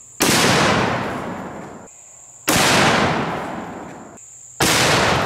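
Booming report of a .500 Nitro Express double rifle firing a 570-grain brass solid, heard three times about two seconds apart. Each shot cuts in suddenly and dies away in a long rolling echo.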